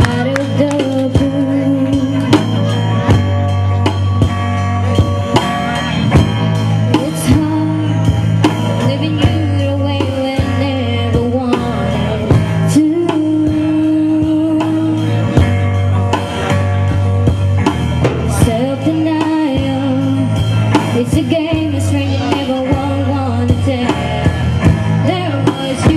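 Live music: a singer with acoustic guitars over a steady bass line and drums, with the voice carrying a gliding melody.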